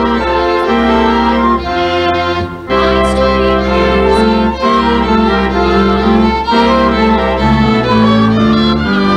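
Instrumental music with long held notes over a sustained bass line, the notes changing every second or two.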